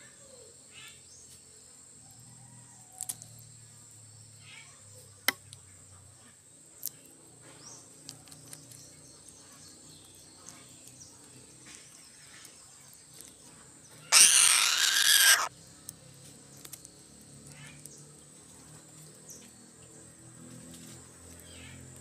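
Insects droning steadily at a high pitch in the background, with a few faint sharp clicks early on and one loud rushing noise lasting just over a second about fourteen seconds in.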